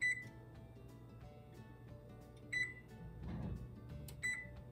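Electric range's oven keypad beeping as the oven is set to preheat to 375: three short, high beeps, one at the start, one about two and a half seconds in and one near the end, over soft background music.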